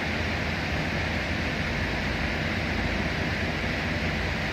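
Steady background hum and rushing noise of running machinery, even in level throughout, with a strong low rumble.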